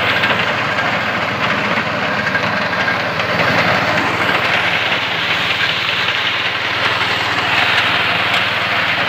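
Walk-behind paddy reaper's small engine running steadily under load while its cutter bar mows standing rice.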